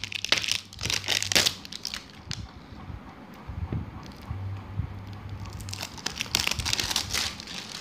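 Thin plastic shrink-wrap seal being torn and peeled off a plastic tub's lid. It crinkles and crackles during the first second and a half, goes quieter for a few seconds, then crinkles again near the end.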